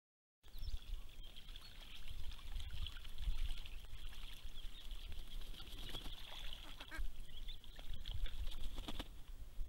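Australian wood duck ducklings peeping: a continuous chorus of many thin, high calls overlapping, over a low rumble with a few clicks.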